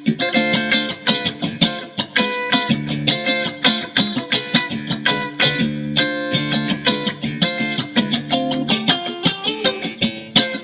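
Mexican-made Fender Stratocaster electric guitar, freshly set up and tuned to drop D, played in a steady run of quick picked notes and strummed chords over ringing low strings.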